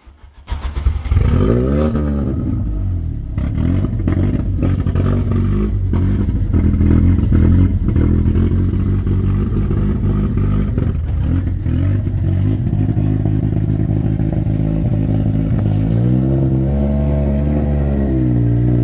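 Ford Focus race car engine firing up about a second in, flaring briefly, then running at an uneven idle. It is revved once near the end, rising and falling in pitch.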